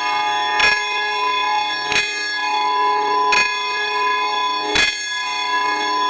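A church bell swinging in its tower and tolling. Its clapper strikes four times, about a second and a half apart, and each stroke rings on into the next.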